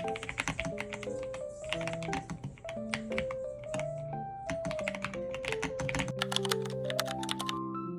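Fast typing on a mechanical keyboard fitted with KiiBoom Sprout Picnic keycaps: a rapid, uneven run of key clacks that stops just before the end. Background music with held, melodic notes plays throughout.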